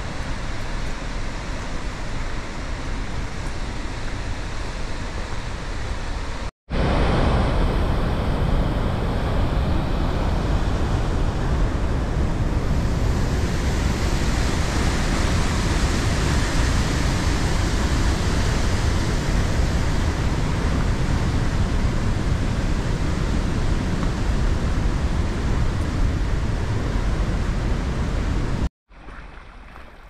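Steady rush of mountain river whitewater. About six and a half seconds in it cuts to a louder, fuller rush of churning rapids close by, which cuts off near the end to a much quieter background.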